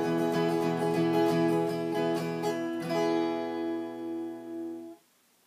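Acoustic guitar strumming the closing chords of a song, ending on a final chord that rings out for about two seconds and then stops abruptly.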